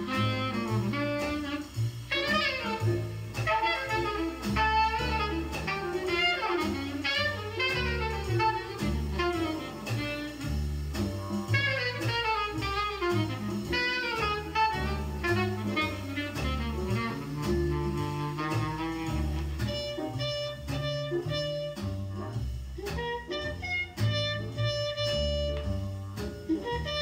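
Jazz record playing over hi-fi loudspeakers in a room, driven by a self-built 2A3 single-ended tube amplifier: a saxophone solo over double bass and drums, with the texture changing about 20 seconds in.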